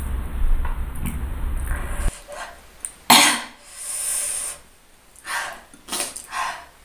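A woman eats close to the microphone, then about three seconds in gives one sharp, loud cough, followed by a few shorter coughs and throat-clearing.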